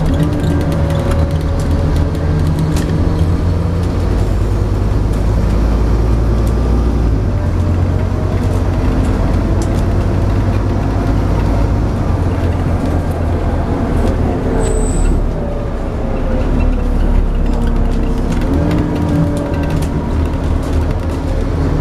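Scania N230UD double-decker bus heard from inside the passenger saloon while under way: its five-cylinder diesel engine and driveline run steadily, with the engine note rising and falling several times as the bus changes speed.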